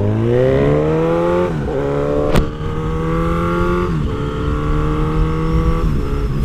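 Motorcycle engine pulling away and shifting up: its pitch climbs for about a second and a half, then drops at each gear change, about 1.5 s, 4 s and 6 s in, holding nearly steady between shifts. A single sharp click comes about 2.4 s in.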